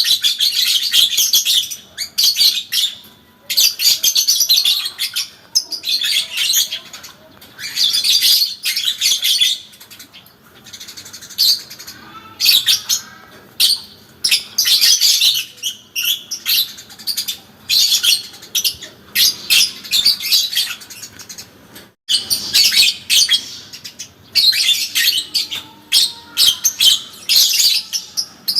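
Parblue lovebird singing its 'ngekek panjang': long, rapid, high-pitched chattering phrases of a second or two each, repeated with short breaks, with a quieter lull about ten seconds in.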